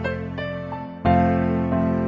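Soft instrumental background music, with a fresh chord struck about a second in.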